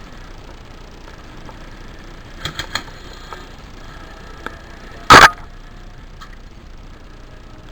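Airsoft gun shots: three quick snaps a little before halfway, a faint single one a couple of seconds later, then a very loud, short burst of fire just past the middle.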